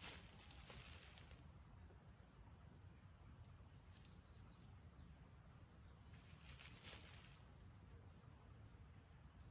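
Near silence with faint rustling in dry leaf litter, twice for about a second each: near the start and again about six seconds in. The rustling is a red junglefowl rooster scratching and foraging in the leaves.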